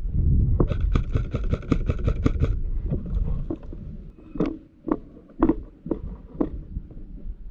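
Airsoft rifle firing a rapid burst of shots for about two seconds, followed by a few separate knocks about two a second.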